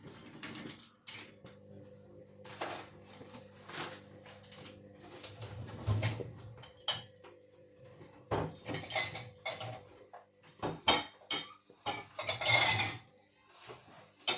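Candy front-loading washing machine tumbling its drum slowly under a steady low motor hum, with irregular clinks and knocks of the load against the drum. It is trying to redistribute an unbalanced load, a heavy jumper, that keeps it from going into spin.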